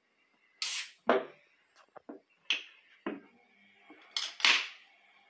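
Aluminium soda cans of carbonated tonic water and bitter lemon being opened by their ring-pull tabs: the gas escapes in a sharp hiss, once near the start and again about four seconds in, with small clicks and knocks of the tabs and cans in between.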